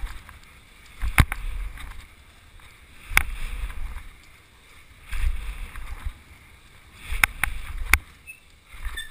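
BMX bike riding a line of dirt jumps: a sharp clack with a burst of tyre rumble on dirt at each landing, about every two seconds. The last two clacks come close together.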